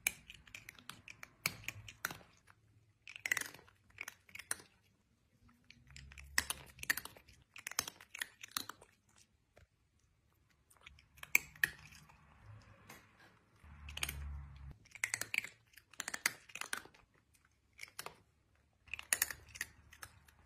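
A cat chewing, in irregular runs of crisp crunching clicks separated by short pauses.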